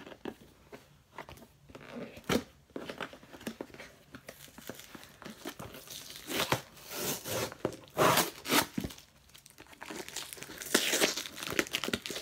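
Shipping package being torn open by hand: irregular crinkling and tearing of packaging, with louder stretches about halfway through and near the end.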